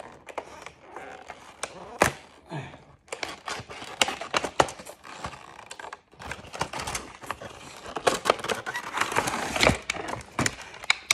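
Handling of a craft kit's plastic and cardboard packaging and pieces: a busy run of clicks, taps and rustling, with one sharp click about two seconds in.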